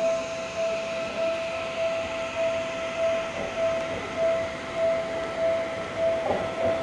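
Electronic level-crossing warning bell ringing on one tone with an even beat of about one and a half strokes a second, over the rumble of an approaching Seibu 30000 series electric train. A brief squeal comes near the end.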